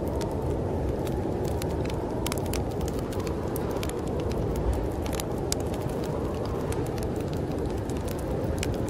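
Steady rushing wind of a snowstorm, with a wood fire crackling over it in scattered sharp pops.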